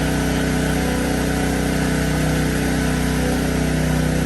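A firefighters' gas-engine ventilation fan running at a steady speed, a dense even engine hum with rushing air, blowing fresh air into the building.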